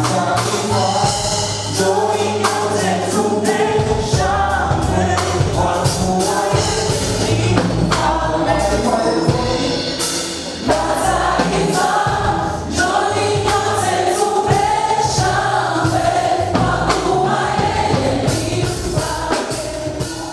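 Gospel worship music: a choir singing over a band with bass and a steady drum beat, fading out at the end.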